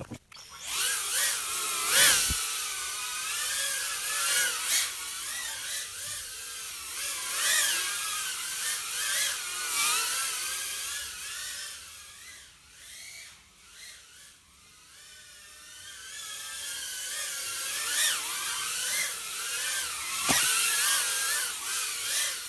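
A 75 mm 2S FPV whoop drone's brushless motors and propellers whining in flight, the pitch rising and falling constantly with the throttle. The whine drops away about halfway through and builds back up, and a few sharp knocks break in.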